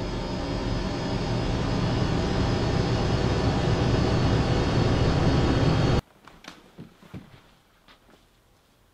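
Horror-film soundtrack drone, a dense rumble with steady tones, swelling louder for about six seconds and then cutting off abruptly. A few faint soft knocks follow in the quiet.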